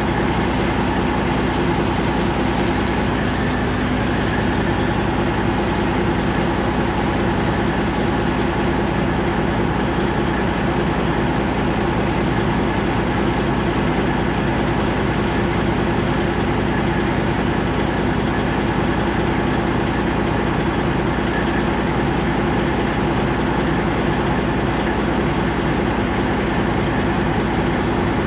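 Semi truck's diesel engine running steadily with road noise, heard from inside the cab.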